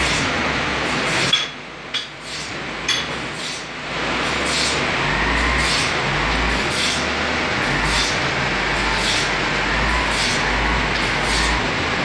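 Sawmill machinery running with a dense, steady din and a regular clatter a little more than once a second. It briefly drops quieter, with a few sharp metal knocks, between about one and four seconds in.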